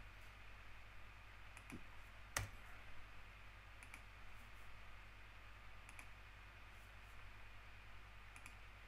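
Faint computer clicks, a few spaced roughly two seconds apart with one sharper click about two and a half seconds in, over a low steady hum.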